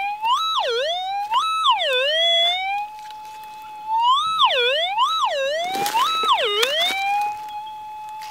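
Metal detector's steady threshold hum, broken by five target signals as the search coil is swept over a freshly dug hole: each is a quick rise in pitch, a brief hold, then a dip below the hum and a slide back. The signals mark metal still in the hole. A brief rustle comes about six seconds in.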